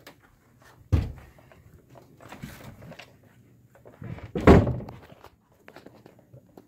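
Two dull thumps, a sharp one about a second in and a louder one about four and a half seconds in. Between them come lighter knocks and rustles from a handheld phone being carried around a room.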